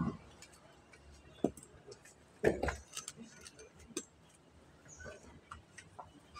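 A hammer striking rock to break it: a few irregular sharp knocks, the loudest a quick pair about two and a half seconds in, with fainter taps and clicks between.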